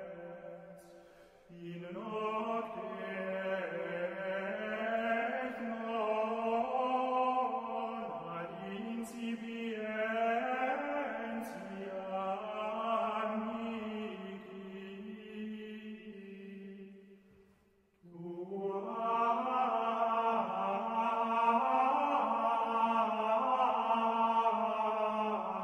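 Slow chanted singing in long, drawn-out melodic phrases. It breaks off briefly about two-thirds of the way through, then starts again.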